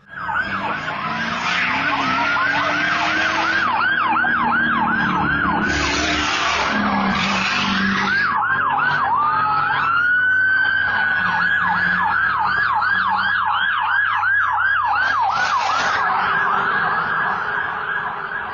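Police car sirens in a fast yelp, more than one wailing at once, with a single slower rising wail about halfway through before the yelp resumes. Bursts of rushing noise come through twice.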